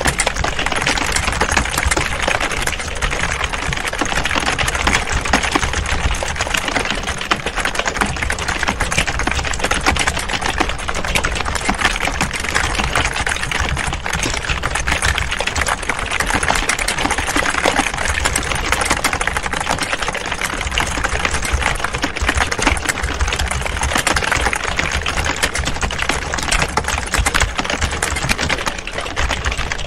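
Many computer keyboards being typed on at once: a dense, continuous clatter of overlapping key clicks with no pauses, like a room full of people typing.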